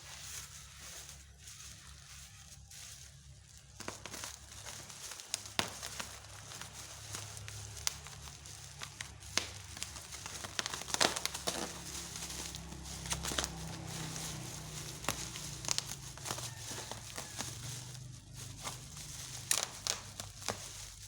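Packaging being handled and opened: crinkling and tearing plastic and cardboard, with many irregular clicks and knocks from about four seconds in.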